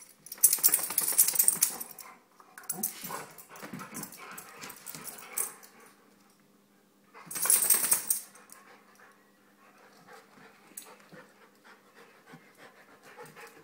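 Two dogs play-wrestling: scuffling and dog noises in two loud bursts, one from about half a second to two seconds in and another around seven to eight seconds, with quieter scuffling between and after.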